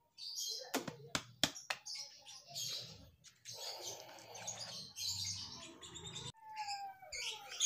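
Small birds chirping, with a few sharp clicks about a second in and rustling as a plastic-framed air filter element is handled.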